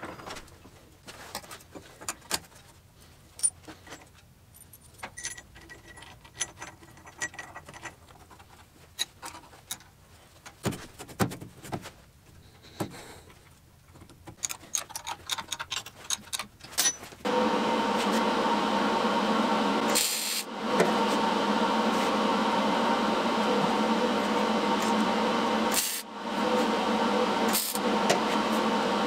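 Small steel parts clinking and tapping as a drilled mounting plate, bolts and a chainsaw bar are handled at a bench vise. A little over halfway through, a loud steady drone with several held tones starts and continues, broken briefly twice.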